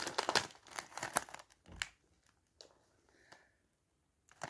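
Crisp bag crinkling as it is cut open with scissors and handled: a run of sharp crackles in the first two seconds, then only a few faint rustles.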